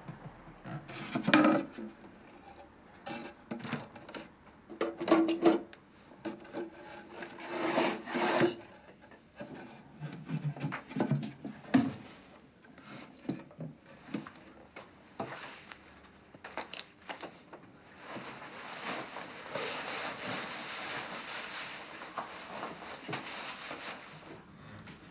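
A wooden loudspeaker cabinet being handled: irregular rubbing, scraping and knocks of wood, loudest in the first half. In the last third a steady hiss takes over.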